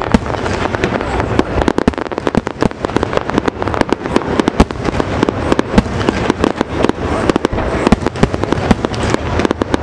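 Fireworks display: a dense, unbroken string of sharp bangs and crackles from bursting aerial shells, several a second.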